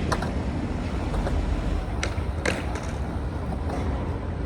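Skateboard rolling on pavement under a steady low rumble, with a few sharp clacks of the board: one right at the start, then two about two and two and a half seconds in.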